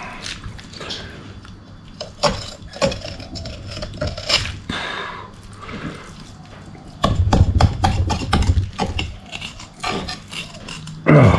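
Knife cutting and scraping along a rainbow trout fillet to take out the dorsal fin: scattered clicks, taps and scrapes, with a denser stretch of scraping about seven seconds in.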